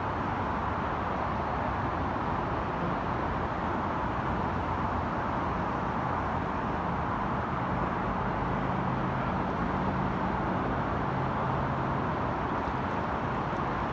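Steady roar of road traffic, with a low engine hum that comes up for several seconds in the middle.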